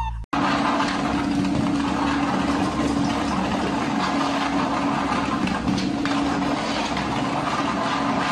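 Electric treadmill running: a steady motor hum over the even whir of the moving belt.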